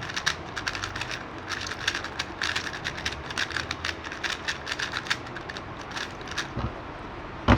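Magnetic speed cube being turned quickly by hand: a rapid, irregular run of plastic clicks as the layers turn and snap into place, with one louder knock near the end.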